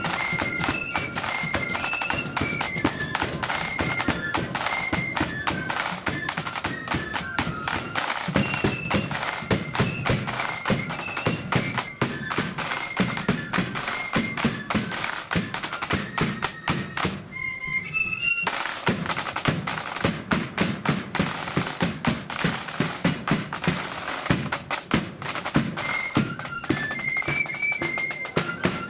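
Blood-and-thunder marching flute band playing: flutes carry a high tune over dense, rapid drumming and a heavy bass drum. Just past the middle the drums stop for about a second, leaving the flutes alone, then come back in.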